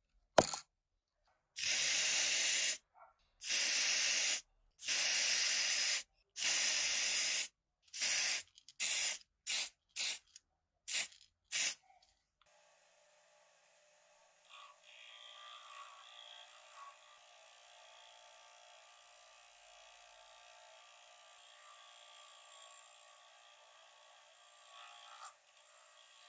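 A sharp click as the plastic cap comes off an aerosol spray can, then the can sprays in about four hissing bursts of a second each and about seven short puffs. After that a small bench motor with a cloth buffing wheel runs faintly while a small metal rod is polished on it.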